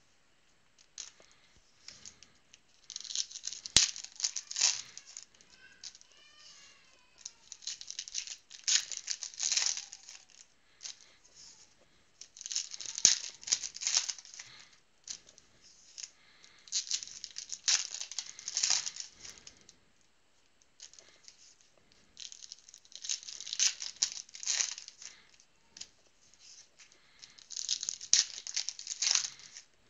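Foil trading-card pack wrappers being torn open and crinkled, one pack after another, in six bursts about four to five seconds apart.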